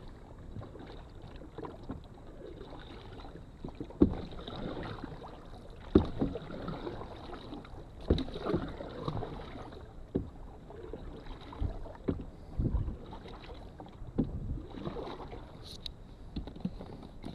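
Canoe being paddled: paddle strokes through the water, with a sharp knock about every two seconds.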